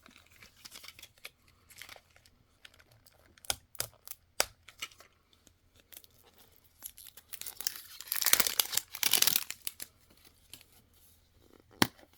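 A few sharp clicks as a toy egg is handled, then a plastic wrapper being torn and crinkled open for about two seconds, the loudest part; one more click near the end.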